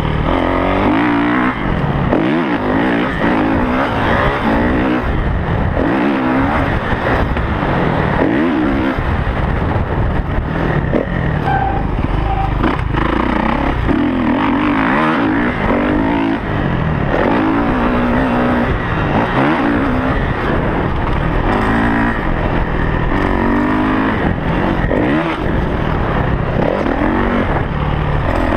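Dirt bike engine revving up and down again and again as it is ridden hard around a sandy track, heard from the rider's helmet camera.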